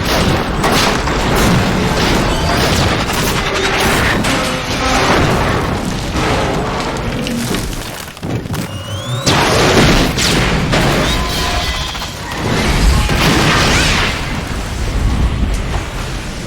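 Sound effect of a train crashing through a building and exploding: continuous loud crashing, booms and rumble with debris. The sound dips briefly about eight seconds in, then comes a fresh loud blast about ten seconds in and another surge around thirteen seconds.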